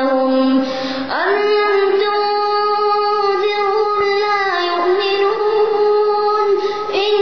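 A boy reciting the Quran in a melodic, chanted style (tajwid). His voice rises sharply about a second in, then holds one long note with small turns, breaking for a new phrase near the end.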